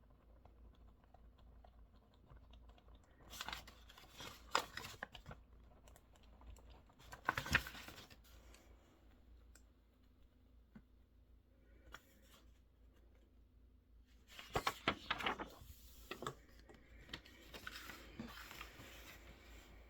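Short spells of typing on a mechanical keyboard, four bursts of rapid key clicks with pauses between them, over a faint steady room hum.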